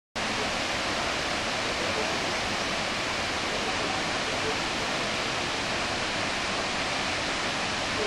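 Shiraito Falls, a wide curtain of many thin falls dropping into a plunge pool: a steady, even rush of falling water.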